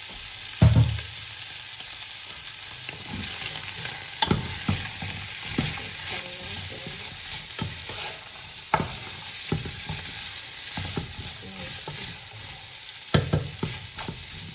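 Julienned carrots and shredded chicken sizzling in a nonstick pot while a wooden spatula stirs them, knocking and scraping against the pot; the loudest thumps come about a second in and again near the end.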